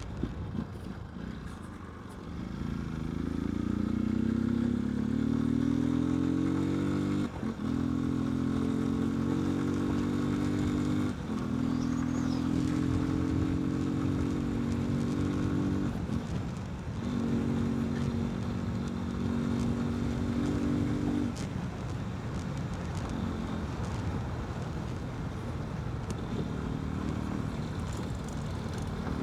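Yamaha Fazer 250's single-cylinder engine, running without its air filter, pulling hard through the gears, its pitch climbing and dropping at quick upshifts about seven and eleven seconds in. It then holds a steady pitch and eases off to a lower, quieter run for the last several seconds.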